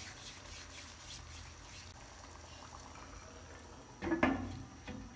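Chickpea curry simmering faintly in a nonstick pan, then about four seconds in a glass pot lid with a metal rim is set down on the pan with a brief clatter.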